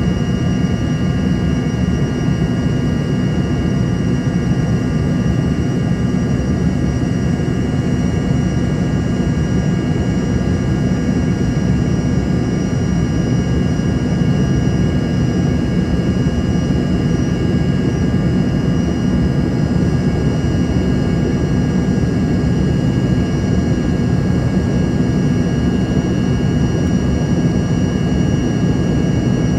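Embraer ERJ-145's Rolls-Royce AE3007 turbofan engines running at a constant setting: a steady rumble with several steady whining tones over it.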